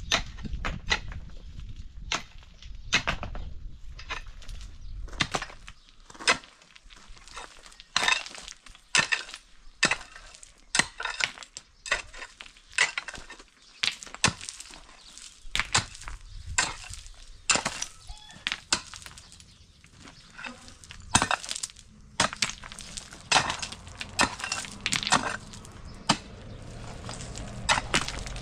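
Pickaxe striking hard, stony ground again and again in irregular strokes, with loose stones clinking and clattering as they are broken out and moved.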